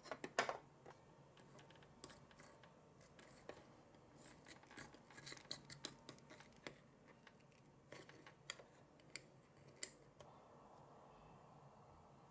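Small plastic spoon stirring and scraping a powder-and-water mix in a little plastic bowl: scattered light scrapes and clicks that stop about ten seconds in. A brief plastic clatter at the very start.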